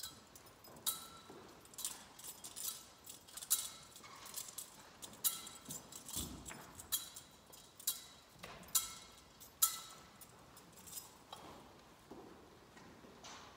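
Metal thurible swung on its chains to cense the people, the censer striking its chains in a series of sharp, ringing metallic clinks, often in pairs. The clinks thin out after about ten seconds.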